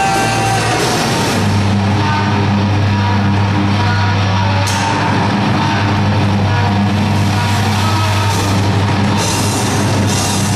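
Heavy metal band playing live: distorted electric guitar and bass holding a low riff over drums on a Pearl kit. The cymbals thin out early on, then a crash comes back in about halfway through, with more cymbal hits near the end.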